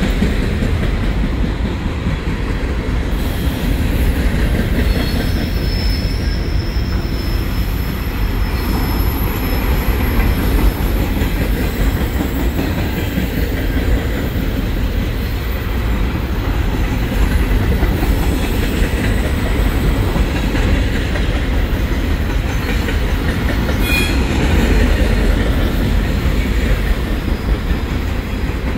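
Freight cars of a Norfolk Southern trash train rolling past, a steady heavy rumble of steel wheels on rail. A few faint high wheel squeals come in the first third, and there is a sharp clank about 24 seconds in.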